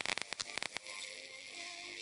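Homemade plasma speaker's arc crackling and hissing loudly, then just under a second in the crackle stops and faint music comes through the arc over a steady high hiss.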